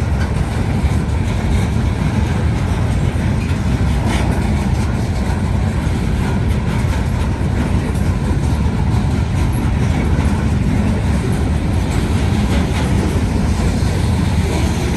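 Freight train cars rolling past, steel wheels on the rails giving a steady rumble with occasional faint clicks.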